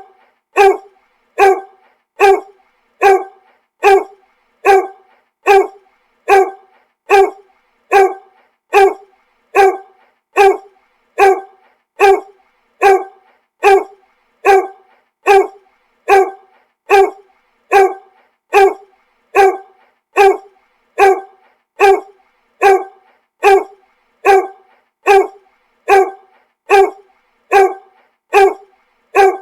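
A dog barking in single, identical, evenly spaced barks, a little more than one a second, with silence between them, like a repeating loop.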